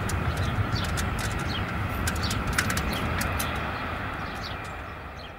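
Small birds chirping in short, quick calls, some sweeping down in pitch, over a steady low rumble and a constant high whine; everything fades down over the last couple of seconds.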